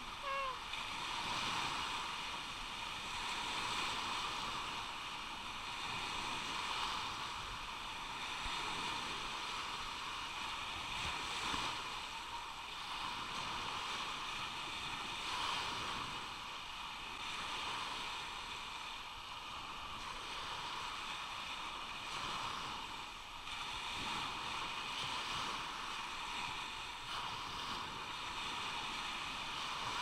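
Small sea waves washing onto a sandy beach, a steady wash that swells and eases every few seconds.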